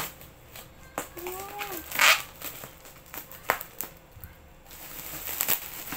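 Plastic bubble wrap crinkling and crackling as it is handled and pulled off a packed item, with several sharp snaps and a louder rustle about two seconds in.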